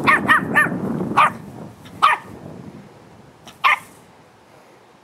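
Patterdale terrier yapping: six short, high barks, three in quick succession, then single ones with longer gaps, the last a little past three and a half seconds in.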